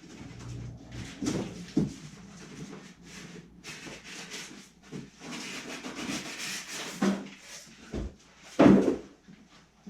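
Loose parts and packaging being handled and gathered into a container: rustling with scattered knocks and clunks, the loudest clunk near the end.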